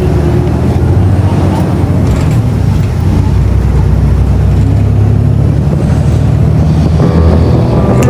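A city bus driving along a road, heard from inside the passenger cabin: a steady low rumble of engine and road noise.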